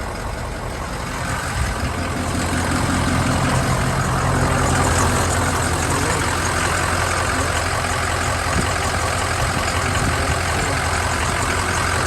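Van engine idling steadily, getting a little louder about two seconds in.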